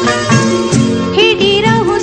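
Background music with a beat; a wavering, ornamented melody comes in about a second in.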